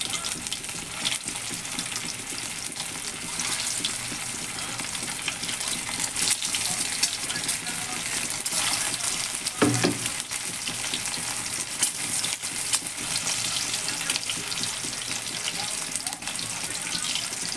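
Potato egg chops frying in hot oil, a steady sizzle full of fine crackles. About ten seconds in, one brief dull knock sounds over it.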